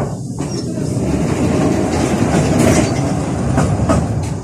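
71-605A (KTM-5A) tram running on the rails. The wheel rumble builds over the first second, and a few sharp knocks come near the end as the wheels cross rail joints.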